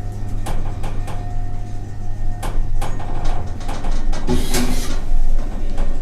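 Toshiba elevator in operation: a steady low hum with scattered clicks, and a short rush of noise about four seconds in.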